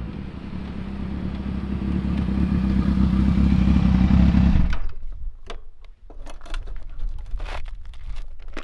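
Kawasaki Z1000 motorcycle's inline-four engine running through its exhaust, growing louder over about four seconds and then cutting off abruptly. Afterwards come a string of light clicks and scuffs.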